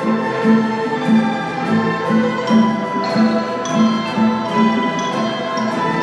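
Chinese orchestra playing: a low note repeats about twice a second beneath long held higher notes.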